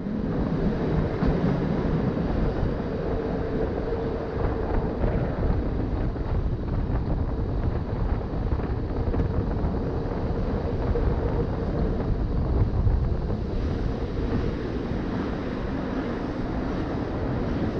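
Rhaetian Railway train running steadily, heard from an open window with wind buffeting the microphone.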